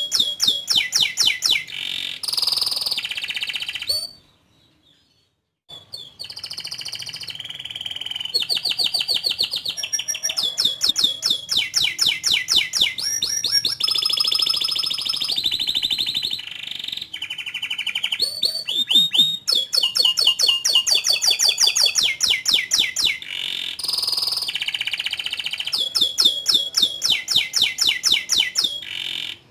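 Domestic canary singing a long, energetic song of rapid repeated chirps and rolling trills, breaking off for a second or so about four seconds in.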